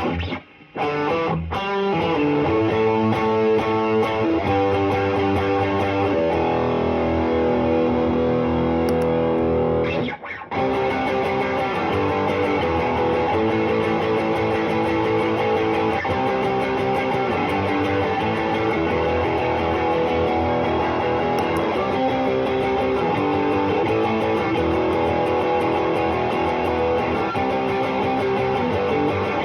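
Electric guitar played through a Caline CP-47 Pressure Tank compressor pedal, with ringing, sustained notes and chords. The playing breaks off briefly twice, just after the start and about ten seconds in.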